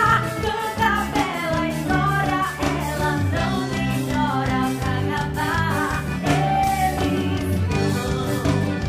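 Festa junina quadrilha music with a steady beat and a melody line.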